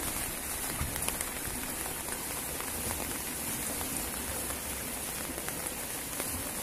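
Steady hiss of water from the River Wye in full spate, swirling and rushing past the footbridge's stone pier, with a few faint ticks.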